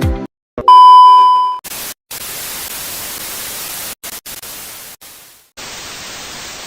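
A loud, steady electronic beep lasting about a second, then a hiss of white-noise static in several stretches that start and stop abruptly, the way an edited static sound effect does.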